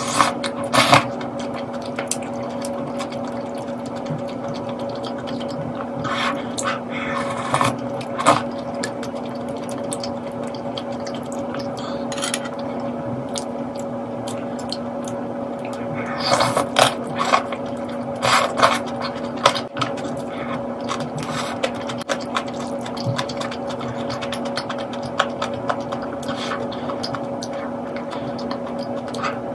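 Mukbang eating sounds: metal chopsticks and spoon against a ceramic bowl, with slurps of soup broth, in short bursts near the start, around six to eight seconds in and around sixteen to nineteen seconds. A steady hum runs underneath throughout.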